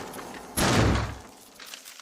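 A single heavy thump about half a second in, deep and fading away within about half a second.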